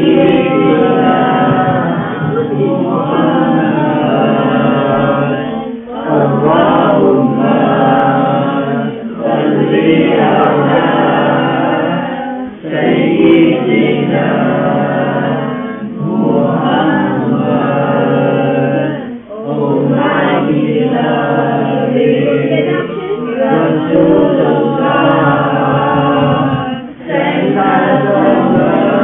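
A group of children singing a Durood (salawat in praise of the Prophet) together as a choir, in phrases of three to four seconds with short breaks between them.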